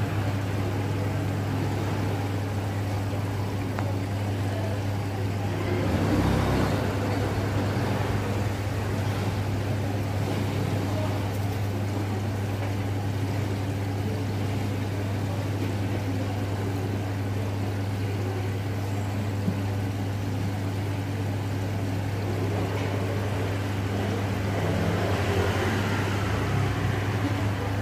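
Steady low mechanical hum over an even background noise, swelling slightly about six seconds in and again near the end.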